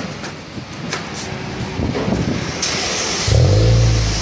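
Toyota Vios engine starting about three seconds in, with a brief loud surge as it catches, then settling into a steady low idle. It is heard at the tailpipe of an aftermarket Mugen-style rear exhaust section.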